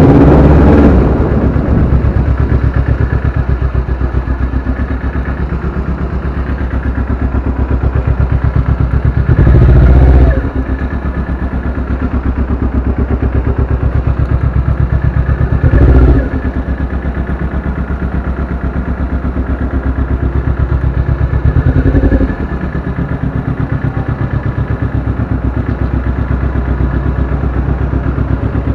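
Sport motorcycle engine running at low revs as the bike creeps along, with three short throttle blips that rise in pitch and then drop back to a steady idle.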